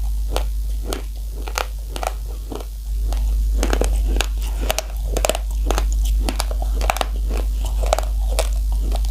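Close-up crunching of raw, uncooked rice grains between the teeth: many sharp, irregular crunches, several a second, over a steady low hum.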